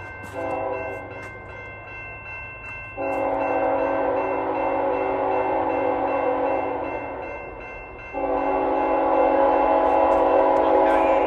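Diesel freight locomotive's multi-chime air horn sounding for the crossing: a short blast about half a second in, then two long blasts, the second still going at the end. Under it, a steady low locomotive rumble and the constant high ringing of the crossing signal bells.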